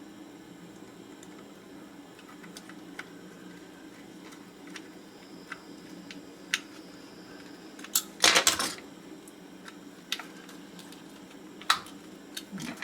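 Small metal tools and parts clicking and clattering on a workbench: scattered light ticks, a brief burst of clatter about eight seconds in and a single sharp click near the end, over a steady low hum.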